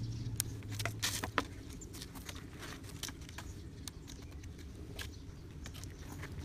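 Scattered light clicks, taps and scratches of hands handling a PVC-pipe frame and binding a rubber strip onto it, busiest in the first second and a half, over a low hum that fades about a second in.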